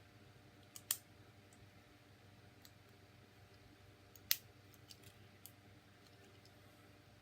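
Plastic joints and parts of a Transformers Solus Prime action figure clicking as it is worked through its transformation by hand: a quick double click about a second in, the loudest single click a little past four seconds in, and a few fainter ticks between.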